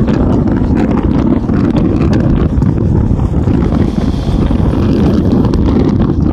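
Wind rushing in through an open bus window and buffeting the microphone, over the steady low rumble of the bus travelling at highway speed.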